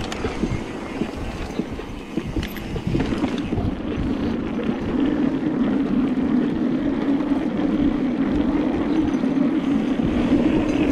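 Mountain bike riding fast, its tyres rolling on dirt with knocks from the bike over bumps, then from about three seconds in a fast, steady rattle as the tyres run over the slats of a wooden boardwalk.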